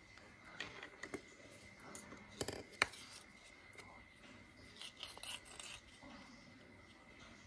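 Faint rustling and light clicks of hands handling two glued leather pieces and a length of waxed thread, measuring it off for hand stitching. A sharp tick comes a little under three seconds in, and a short run of rustles follows around five seconds.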